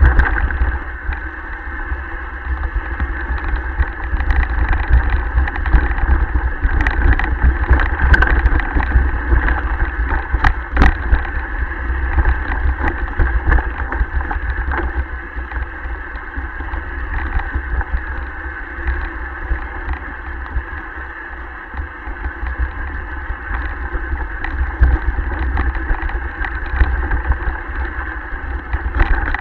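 Mountain bike descending a rough, rocky forest trail: steady rumble and rattle of the bike and wind buffeting a body-mounted action camera's microphone, with a few sharp knocks from bumps about a third of the way in.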